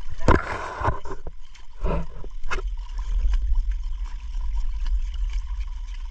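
Seawater sloshing and gurgling against rocks, with a steady low rumble on the microphone. A louder rush comes in the first second, and a few short knocks and scrapes follow.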